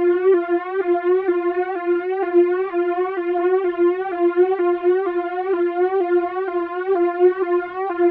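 Synthesized sci-fi alarm: a buzzy electronic tone that pulses about two to three times a second, each pulse sweeping slightly upward, repeating without a break.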